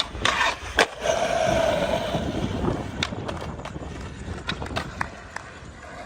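Skateboard popped with sharp cracks, then its metal trucks grinding in a 50-50 with a steady scraping for about a second and a half, followed by wheels rolling with scattered clicks.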